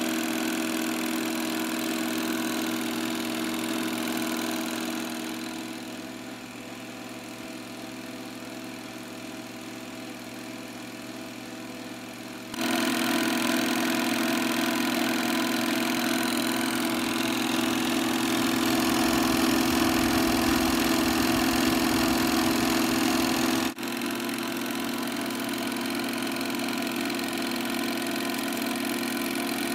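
Bell & Howell 253A 8mm film projector running, a steady motor hum with film passing through the sprockets. The sound gets quieter about five seconds in, jumps abruptly louder around halfway through, and drops out for a moment shortly before the end.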